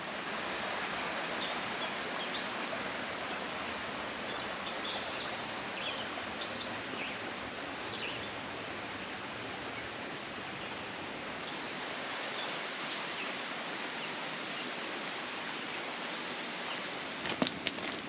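Steady, even hiss of rainforest ambience with faint, scattered short bird chirps over it. A few sharp clicks come near the end.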